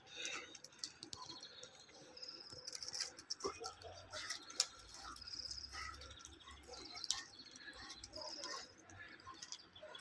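Birds calling faintly: several quick, high-pitched trills and scattered chirps. A couple of sharp clicks stand out, the loudest about halfway through.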